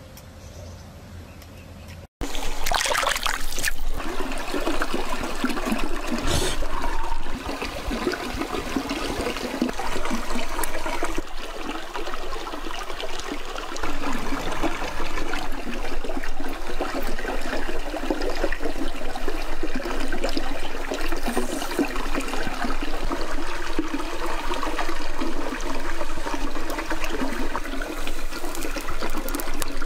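A chili pepper sizzling on bamboo skewers over hot charcoal: a loud, dense, crackling sizzle that starts suddenly about two seconds in.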